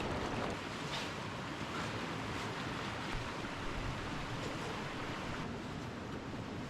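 Mountain stream rushing steadily over its bed.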